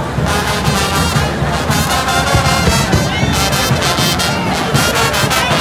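Brass band music starting about a quarter second in: a Panamanian carnival murga of trumpets and trombones playing loudly in the parade.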